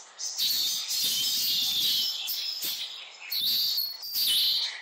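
Birds chirping and calling, a run of short high notes with a few falling whistles.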